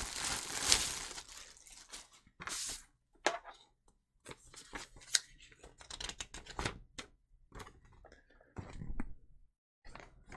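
Plastic packaging bag crinkling and rustling as it is handled, then paper leaflets rustling as they are unfolded and shuffled, in short irregular spells with small clicks. The rustling is loudest in the first second or so.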